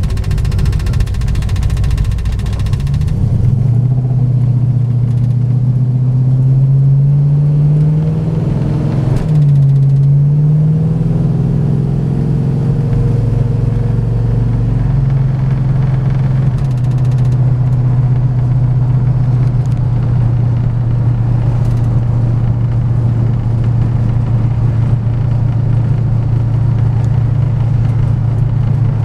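Car engine heard from inside the cabin as the car pulls away. The engine note climbs for several seconds, dips briefly about nine seconds in as at a gear change, climbs again, then settles into a steady cruise.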